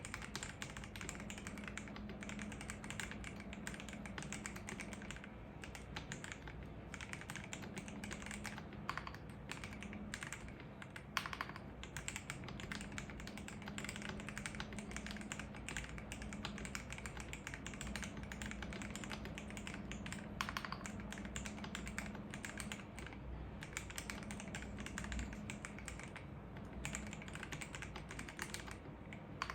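Fast, continuous typing on a KBD67 Lite R3 mechanical keyboard. Its hot-swap board carries Akko CS Starfish switches lubed with Krytox 205g0 and Poron case foam, giving a dense stream of key clicks with a few short pauses.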